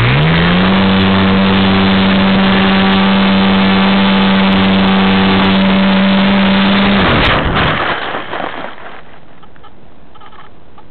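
Radio-controlled model plane's motor and propeller running at high throttle with a steady, loud buzz. The pitch dips briefly right at the start, and the motor cuts off about seven seconds in.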